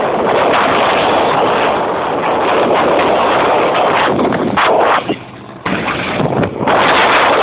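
Strong tornado wind buffeting the microphone: a loud, steady rushing noise with brief gusty breaks. It drops away for about half a second around five seconds in.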